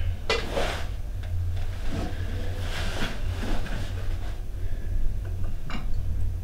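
A steady low hum, with soft rustling and shuffling of cloth as a person shifts and lies down on a floor mat, strongest about half a second in and again around three seconds in.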